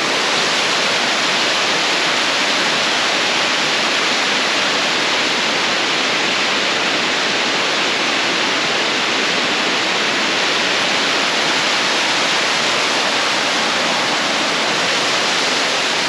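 The Uracher Wasserfall pouring down in unusually heavy flow: a loud, steady rush of falling water with no change in level.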